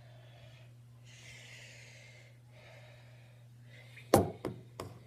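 Slime of shampoo and jelly being stirred with a utensil in a container: soft rubbing, squishing sounds, then three sharp knocks in quick succession about four seconds in. A steady low hum runs underneath.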